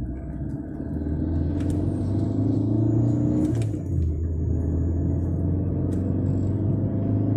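Car engine and tyre noise heard inside the cabin while driving at highway speed: a steady low hum.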